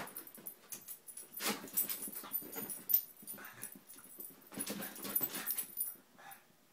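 A pug and a miniature pinscher scrambling after a laser dot: spells of scuffling paws and dog breathing noise, coming in three bursts, with one sharp knock about three seconds in.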